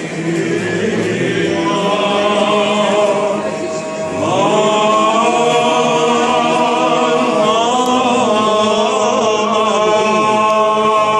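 A group of voices chanting a Greek Orthodox Good Friday hymn in Byzantine chant. A new, louder phrase begins about four seconds in and is held with gliding ornaments.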